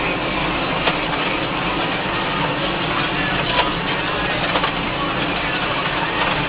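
Case IH JXU105 tractor running steadily while pulling a plough, heard as a dense steady rumble and rush with a few small knocks.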